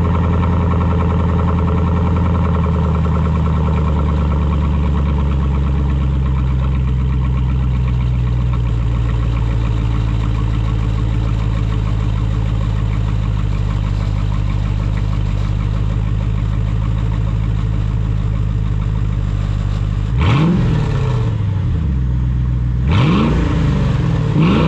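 A machine running steadily with a low, even hum made of several pitched tones. Near the end the pitch swoops up and back down three times in quick succession.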